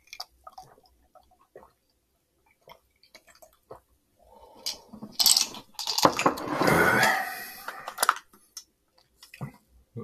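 Light clicks and knocks of a mug and utensils handled at a table, with a louder noisy sound lasting about three to four seconds in the middle.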